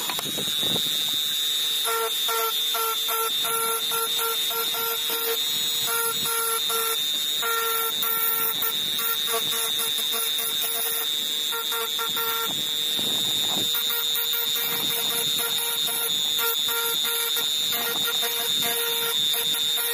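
Digital Craft variable-speed rotary tool (die grinder) running at high speed with a steady high-pitched whine. Its small engraving bit grinds into glass, adding a scratchy tone that comes and goes as the bit is pressed and lifted.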